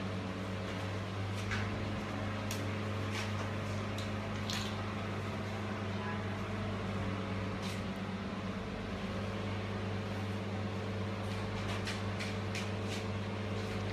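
Steady low electrical hum, like a running machine or appliance, with a few faint scattered clicks over it.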